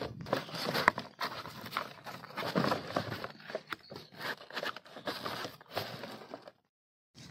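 Cardboard box flaps being pulled open and handled: irregular scraping and rustling with sharp clicks, the loudest about a second in. The sound cuts off suddenly shortly before the end.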